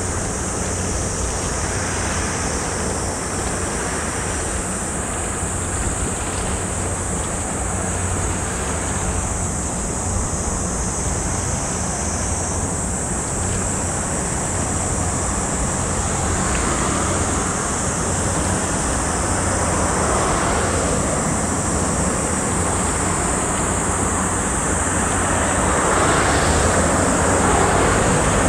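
Steady outdoor rushing of wind and water by a harbour, under a low steady hum, growing a little louder near the end.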